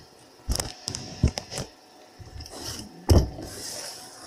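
Handling sounds of a die-cast metal toy tow truck, a 1978 Matchbox Super Kings Peterbilt: a few light clicks and knocks of its metal and plastic parts, then a louder knock about three seconds in as it meets the workbench, followed by a short scrape.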